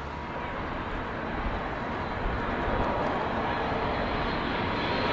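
Large jet airliner on landing approach: a steady jet-engine rush with a faint whine, growing gradually louder as the aircraft comes closer.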